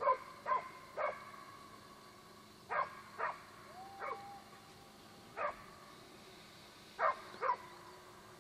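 Hunting dog barking, short sharp barks mostly in pairs, about nine in all. A faint thin steady tone sounds in the middle.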